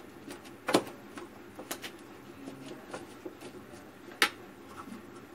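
A metal spoon stirring chopped vegetable and paneer stuffing in a plastic bowl: soft, scattered clicks and scrapes, with two sharper knocks, one under a second in and one about four seconds in.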